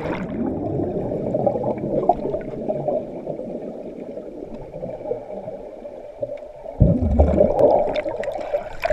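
Muffled underwater sound heard by a GoPro submerged in a swimming pool: water churning and bubbling, dull, with almost no treble. About seven seconds in it turns louder and deeper as the water is stirred near the camera.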